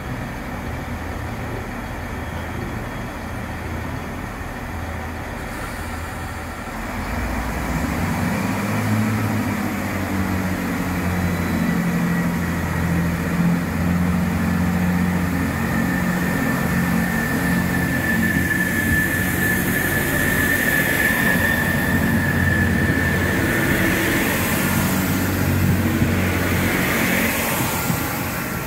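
Class 165/166 Turbo diesel multiple unit departing: its underfloor diesel engines idle at first, then power up about seven seconds in and keep pulling hard as the train accelerates past. A thin high whine runs for several seconds in the middle.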